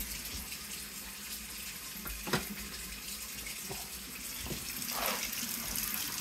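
Kitchen tap running steadily into a stainless steel sink, with one sharp knock about two seconds in.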